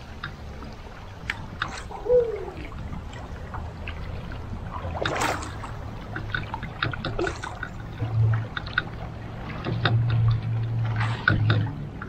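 Double-bladed paddle strokes splashing and dripping into a moving river current, with water gurgling and trickling around a solo canoe's hull. The strokes come as irregular splashes, the biggest about five seconds in.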